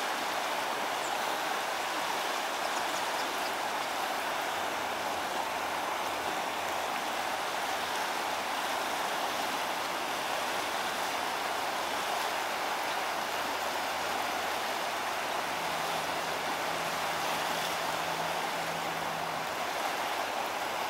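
Steady rushing of a rain-swollen river.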